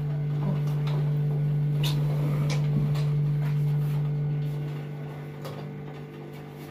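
Steady low hum of a small petrol generator, with about four short, sharp clicks. The hum grows quieter near the end.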